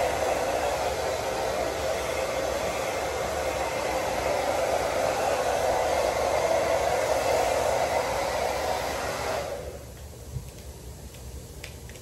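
Handheld hair dryer blowing steadily as it dries a child's hair, then switched off suddenly about three-quarters of the way through.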